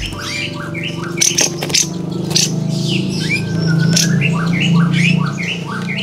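Olive-winged bulbul (kapas tembak) calling in a run of short, harsh, rough notes, about three a second, over a steady low hum.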